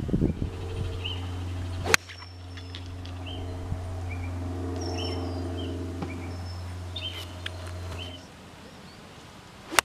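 A hickory-shafted golf club strikes the ball with a sharp crack about two seconds in, and again right at the end. Birds chirp throughout, over a steady low hum that stops about eight seconds in.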